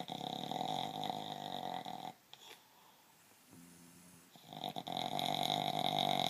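Snoring in a repeating breath cycle. Two long, loud snores about four and a half seconds apart, the first at the start and the second beginning past the four-second mark, with a quieter, lower-pitched breath sound between them.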